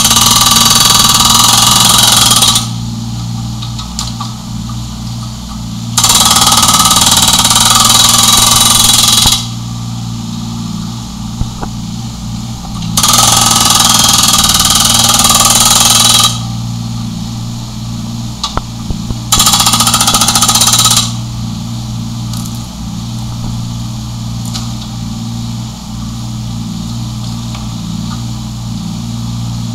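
Rammer hydraulic rock breaker on a 1.7-ton Yanmar mini excavator hammering a concrete slab in four bursts of about two to three seconds each. The excavator's diesel engine runs steadily between the bursts and alone through the last third.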